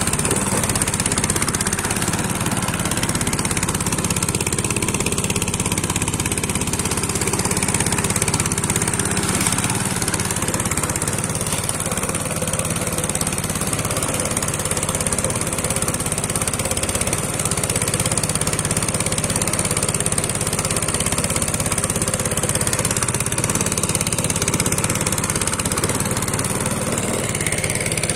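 A small yellow single-cylinder petrol engine driving a longtail boat propeller runs steadily at a constant speed, with the rush and splash of choppy water around the boat.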